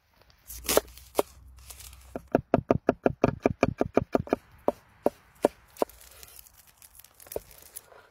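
Cleaver chopping food on a wooden cutting board. First comes a scrape of the blade across the board, then a fast run of knocks at about six a second, then slower, single chops.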